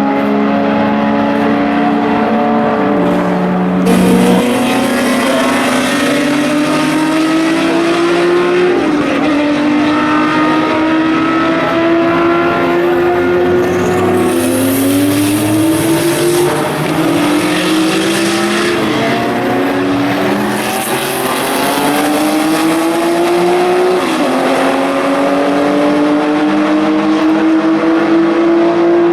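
Several historic racing cars accelerating hard. Their engines rise in pitch through each gear and drop back at every upshift, with more than one car overlapping, and there is a sharp crack about four seconds in.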